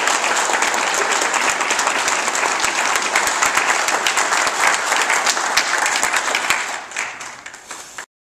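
Audience applauding steadily, a dense patter of many hands clapping. It thins out near the end and then cuts off abruptly.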